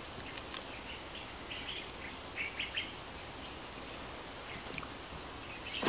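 Rainforest ambience: a steady high-pitched insect drone with scattered short bird chirps, and a brief sharp click near the end.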